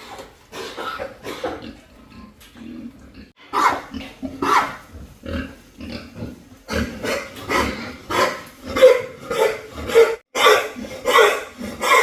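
Pigs making short, repeated sounds, scattered at first, then about two a second and louder from about seven seconds in.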